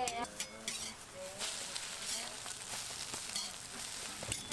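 Egg omelette patties sizzling on a flat steel griddle, with the clicks and scrapes of a metal knife and spatula cutting and turning them against the plate.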